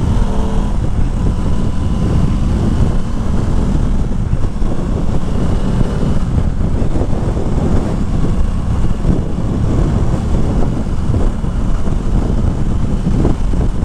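Wind rushing over the microphone at dual-carriageway speed, with the Aprilia Tuono 660's parallel-twin engine running steadily underneath.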